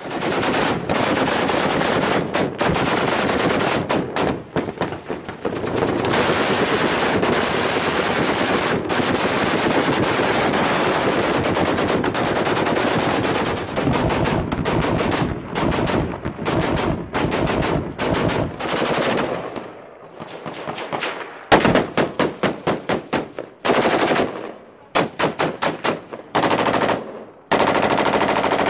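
Heavy automatic gunfire from machine guns and rifles. The shots run dense and unbroken for about the first half, then break into short bursts with brief pauses.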